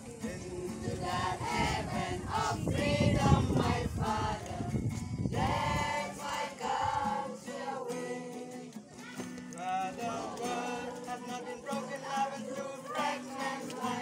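A group of boys singing together in unison, accompanied by a strummed acoustic guitar. A low rumbling noise runs under the first half.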